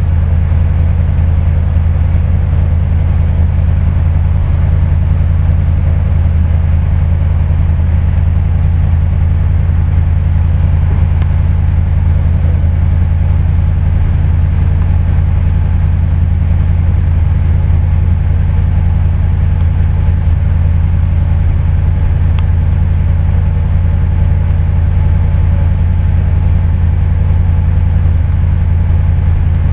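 1966 Lincoln Continental's 462 V8 idling steadily with an even low rumble.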